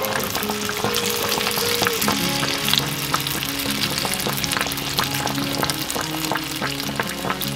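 Battered slice of sourdough bread deep-frying in a pan of hot oil: a steady sizzle dotted with many small crackles and pops, over background music.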